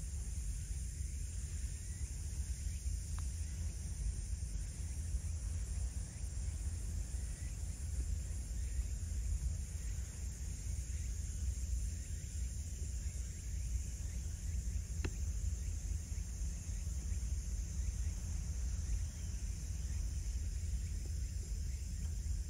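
Steady low rumble of wind buffeting the microphone, with a faint high hiss over it. A single faint click comes about fifteen seconds in.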